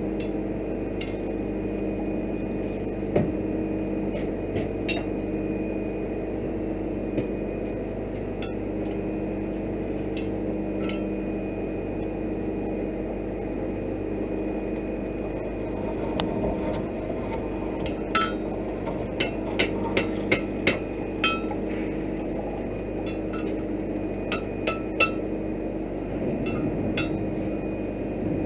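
Occasional light metallic clinks and taps of steel on steel as tongs, bar stock and anvil are handled, with a run of quicker clinks about two-thirds of the way through. Underneath is a steady low hum.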